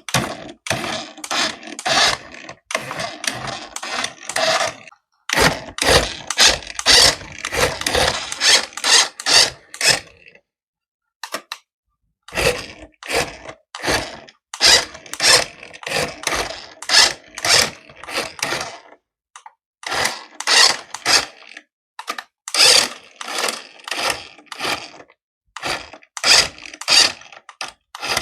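Plastic toy and packaging being handled: runs of short scraping, crinkling strokes, two or three a second, broken by brief pauses.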